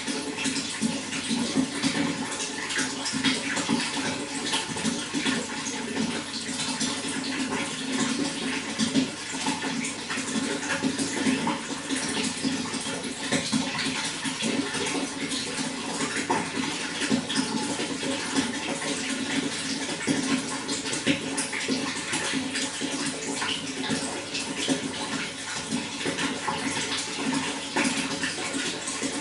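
Running water flowing steadily, an even unbroken rush with fine splashing through it.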